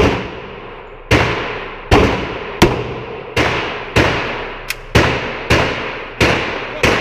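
Gunshots from a semi-automatic pistol fired in a rapid string: about ten shots, roughly two-thirds of a second apart, each ringing briefly before the next, with one fainter, shorter crack in between.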